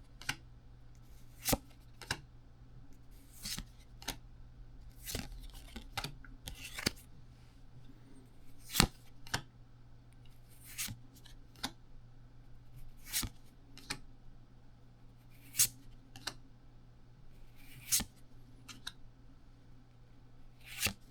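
Pokémon trading cards being flipped through one at a time, each card slid off the stack with a short sharp snap about every two seconds.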